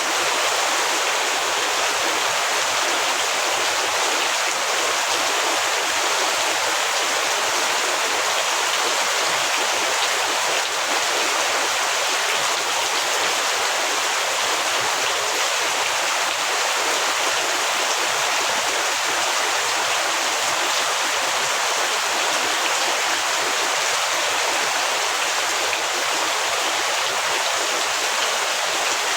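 Heavy rain falling steadily: a dense, even hiss with no breaks or single drops standing out.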